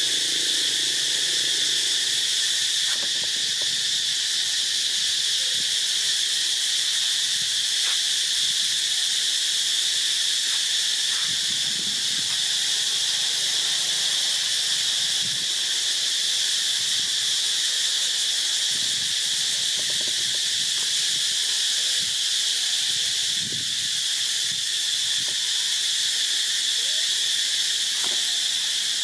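A steady, loud chorus of insects making one continuous high drone that does not let up.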